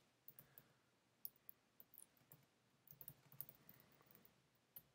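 Faint computer keyboard keystrokes: irregular, scattered clicks of typing while editing code.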